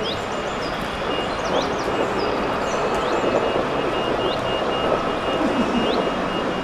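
Steady rushing outdoor noise with short bird chirps every second or so and a faint high beep repeating on and off.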